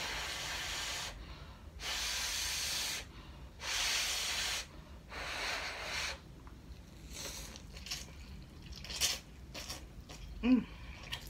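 A person slurping instant ramen noodles off chopsticks, four long slurps in the first six seconds, followed by quieter chewing clicks and a short hum near the end.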